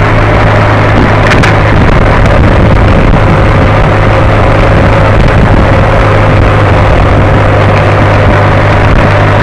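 Road vehicle engine running steadily at cruising speed, heard from on board as a constant low drone under loud wind and road noise, with no change in revs.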